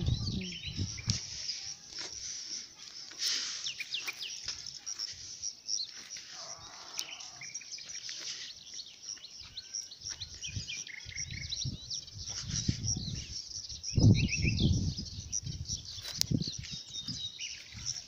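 Small birds chirping and singing, a dense run of short high calls throughout. Irregular low rumbles on the microphone come and go, the loudest about fourteen seconds in.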